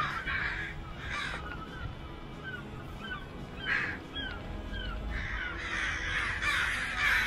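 Birds in a noisy commotion: harsh calls in several bursts, the longest run near the end, with short falling chirps between them. The speaker puts the racket down to the ducks panicking while an eagle takes one of them.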